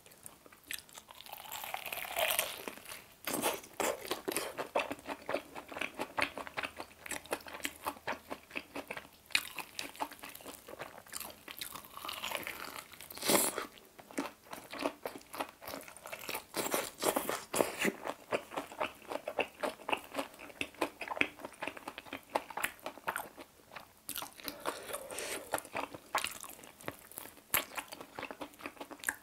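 Biting and chewing of a crispy fried chicken drumstick dipped in creamy sauce: the battered coating crunches and crackles over and over, with one sharp, loud crunch about halfway through.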